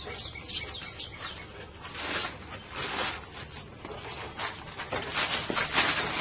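Small birds chirping, many short high falling chirps repeated throughout, over rustling and handling noise.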